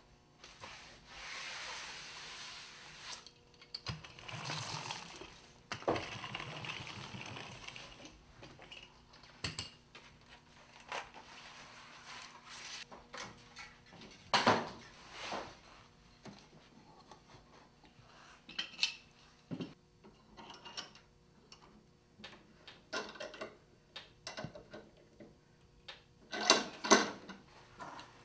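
Hands-on studio work: a few seconds of rubbing and scraping, then scattered light clicks and knocks as materials and tools are handled, with a louder clatter near the end.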